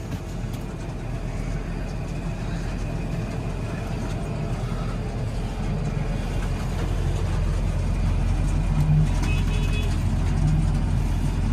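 Tractor engine running steadily while it tows a silage feed-out wagon that is throwing maize silage out to cows, growing louder in the second half.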